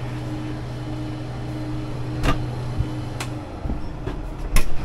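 Deutz-Fahr 6175 TTV tractor engine running steadily at idle, with the PTO disengaged and the brake on. A few sharp clicks sound over it, the loudest near the end, and the engine hum changes about three and a half seconds in.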